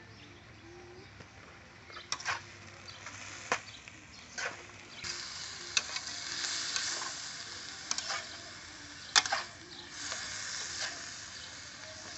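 A metal spatula scraping and clinking against a steel wok as food is stir-fried, with the pan sizzling. The clinks start about two seconds in and come every second or so, and the sizzle grows louder about halfway through.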